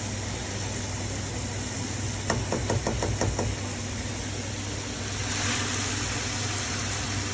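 Vegetables sizzling in a stainless steel frying pan, a steady hiss with a low hum under it. A quick run of light knocks a little over two seconds in comes from a silicone spatula stirring against the pan.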